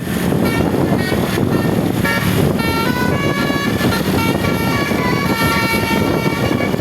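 Bus's basuri telolet horn playing a quick tune of stepped high notes, over a steady loud rumble of engine and road noise.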